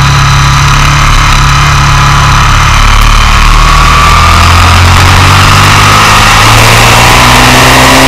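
Motorcycle engine running hard at high revs, its pitch climbing slowly as the bike accelerates, over loud wind rush and tyre roar on the bike-mounted camera microphone.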